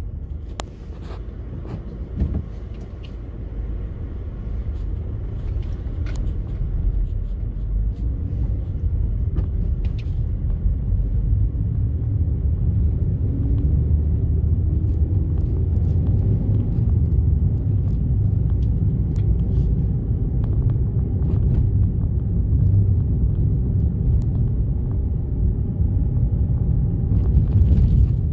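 Car driving on a dirt road, heard from inside the cabin: a steady low road rumble that grows louder over the first several seconds, with scattered clicks and knocks.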